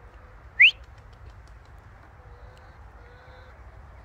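A person's short, loud whistle sliding up in pitch, once, about half a second in, calling a pet macaw to come down and fly to the hand. Faint bird calls sound in the background afterwards.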